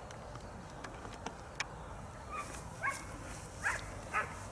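A dog barking in four or five short, sharp barks, starting about halfway through.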